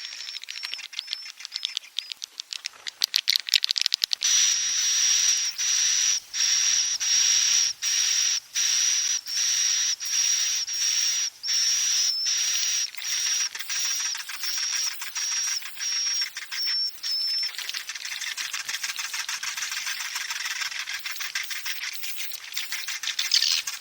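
Recorded swiftlet lure call: a rapid, buzzy chattering of clicks with a steady high whistle-like tone over it, broken by brief gaps every half second to a second.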